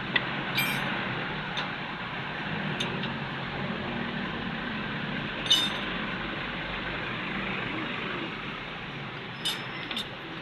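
Metal tools and parts clinking now and then, about seven short sharp clinks, over a steady background hiss.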